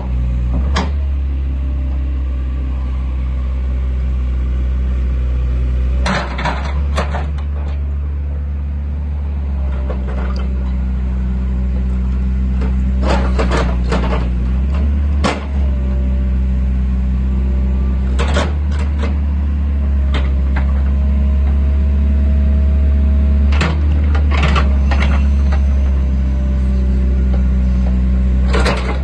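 JCB 8080 tracked excavator's diesel engine running steadily while the hydraulics move the boom, arm and bucket, the engine note shifting as they work. Scattered sharp metallic clanks come through over it.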